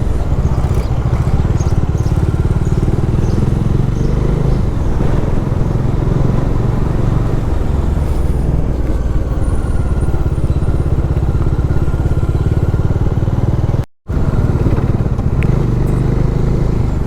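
Motorcycle riding at a steady speed: the engine runs evenly under a constant rush of road and wind noise. The sound cuts out completely for an instant about three-quarters of the way through.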